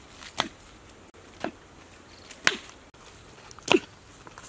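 A curved chopping knife striking into dry, hard earth to dig, four sharp chops about a second apart.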